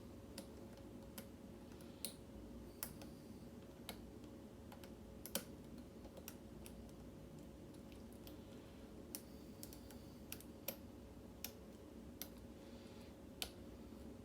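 Faint, irregularly spaced clicks of a hook pick working the pin stacks of a Schlage mortise cylinder held under a tension wrench, over a steady low hum.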